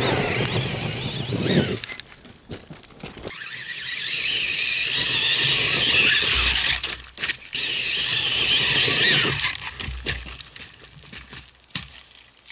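Kyosho Foxx VE electric RC truck's brushless motor and drivetrain giving a loud high-pitched whine as it is driven hard up a dirt slope, with tyres tearing at loose dirt. The whine swells about three seconds in and fades over the last few seconds.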